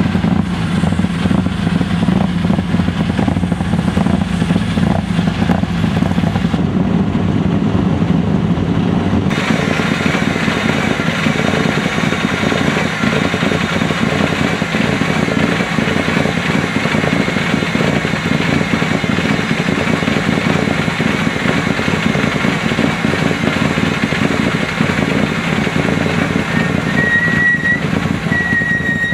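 Mitsubishi Lancer Evolution rally cars' turbocharged four-cylinder engines running steadily as they drive on gravel, with a thin wavering high whine near the end.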